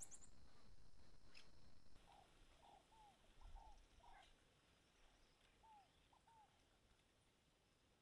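Near silence, with about nine faint, short chirping calls of a small animal scattered through the middle, each a quick rise and fall in pitch; a faint hiss fades away about two seconds in.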